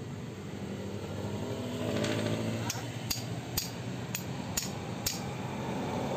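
Light hammer taps on the exhaust valve of a Yamaha Mio i 125 cylinder head during valve removal: about six sharp metallic taps roughly half a second apart, starting a little before halfway through, over a steady low hum.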